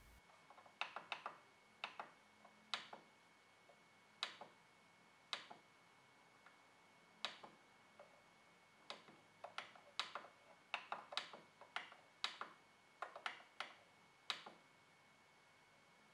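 Control-panel buttons on a Canon MF113w laser printer being pressed, about two dozen short, sharp clicks at an uneven pace, some in quick pairs, as the menus are stepped through.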